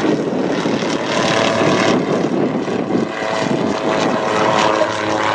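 Gyrocopter's pusher propeller engine running steadily as it flies its display, the engine note coming through more clearly from about a second in.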